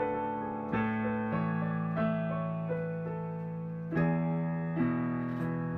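Background music: soft, slow piano or electric-piano chords, a new chord struck every second or so and left to ring.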